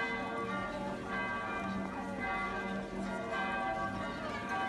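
Church bells ringing, many long-held tones overlapping continuously.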